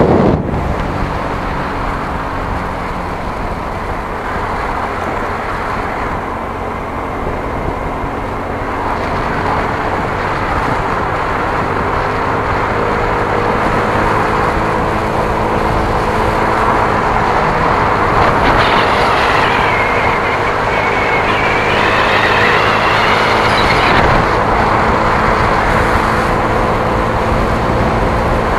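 Steady engine hum and road noise of a vehicle in motion, heard from the vehicle carrying the camera, growing a little louder about a third of the way in. A wavering higher whine rises over it for several seconds past the middle.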